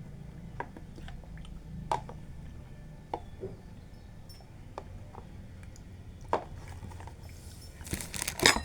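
A person chewing and eating, with scattered small clicks and a louder burst of clatter about eight seconds in.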